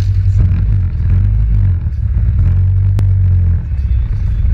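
ATV engine revving under throttle as the quad wheelies up and over onto its rear end, a heavy low rumble that drops away about three and a half seconds in. A single sharp click comes about three seconds in.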